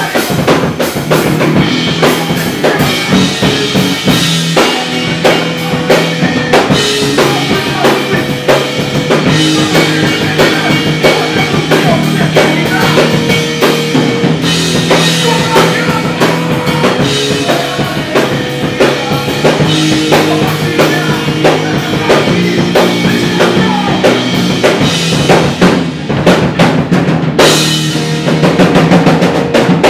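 Live melodic hardcore band playing loudly: electric guitars and bass over a pounding drum kit with kick, snare and cymbals. The cymbals drop out briefly near the end while the guitars carry on.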